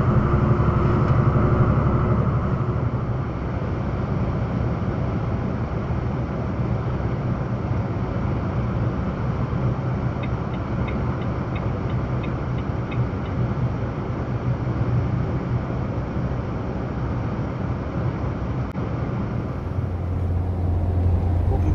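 Truck being driven at road speed: steady engine drone and tyre and road noise. About ten seconds in comes a brief run of faint, evenly spaced ticks, and near the end a deeper steady hum comes in.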